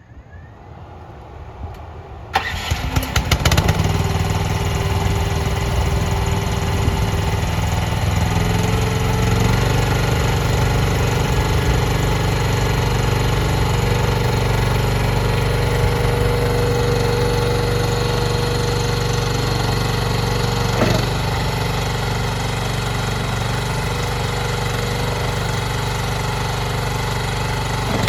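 Mini skid steer's engine starting: a short quiet crank, then it catches about two seconds in with a few uneven firings and settles into steady running. Its speed steps up once, about eight to ten seconds in, and holds, with a single brief knock about three quarters of the way through.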